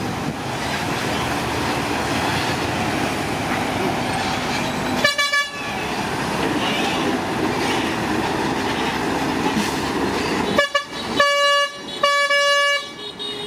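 Heavy vehicle engine running steadily, with a vehicle horn sounding one short blast about five seconds in and three more blasts near the end.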